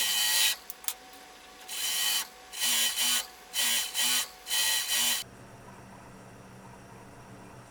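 Industrial lockstitch sewing machine, a JUKI DDL-900C, stitching in short bursts of about half a second, six times, then stopping about five seconds in, leaving a steady low hum.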